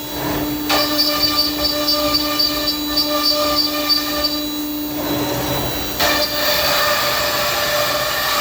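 Thermwood CS-45 CNC router running: a steady high whine made of several held tones. The mix of tones shifts abruptly about a second in, and again around five and six seconds in, as the machine's running changes.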